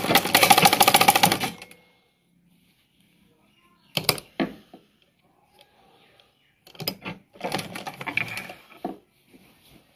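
Sewing machine stitching a seam in two short runs of rapid, even clatter, each about two seconds long, one at the start and one past the middle, with a few sharp clicks in between as the fabric is handled at the needle.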